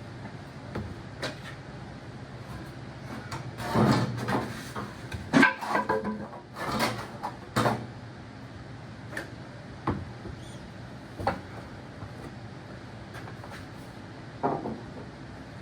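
Metal parts and hand tools knocking and scraping as exhaust parts are worked loose on a tractor, with a busy burst of clanks and scrapes in the middle and a few single knocks later, over a faint steady hum.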